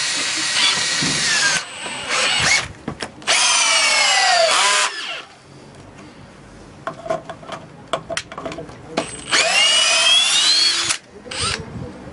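Two Makita BHP458/BHP459 18V cordless hammer driver-drills driving long screws into a wooden beam: the motors whine in several bursts, the pitch climbing as they spin up and sagging as the screws bite and load them. A pause of scattered clicks and knocks comes before the last run.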